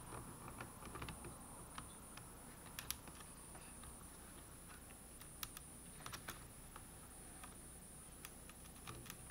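Faint, scattered clicks and taps of small screws and plastic laptop parts being handled while a laptop is put back together.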